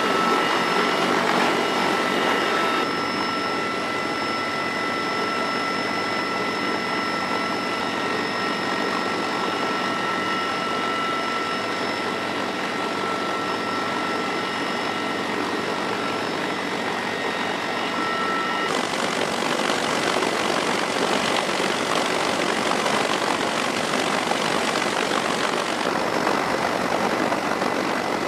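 CH-53E Super Stallion helicopter heard from inside the cabin with the rear ramp open: steady turbine and rotor noise with a high whine over it. About two-thirds through, the whine stops and an even, rushing drone of engines, rotors and wind takes over.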